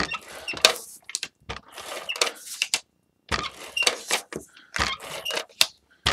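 Handheld tape runner being drawn across paper: scratchy rustling of tape and paper, broken by several sharp clicks and taps as the tool is pressed down and lifted.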